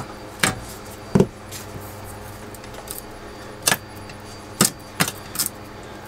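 Sharp metallic clicks and clinks from an aluminum bracket being cut with tin snips and bent by hand. There are about six separate clicks, spaced irregularly.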